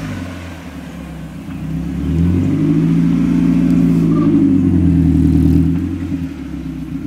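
Mazda Miata's engine note rising, holding steady for a few seconds, then falling back to a lower, steady run.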